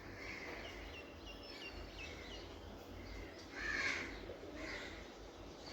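Birds chirping: a quick run of short, repeated chirps, then a louder brief burst of noise about three and a half seconds in.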